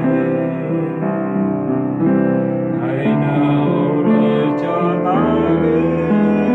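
Piano playing a ballad accompaniment: sustained chords that change about once a second, with a melody line over them.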